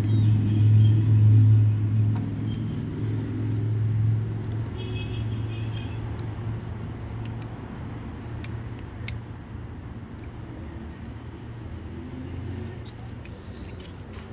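A low engine rumble, loudest in the first couple of seconds and then fading away, with a few light clicks over it.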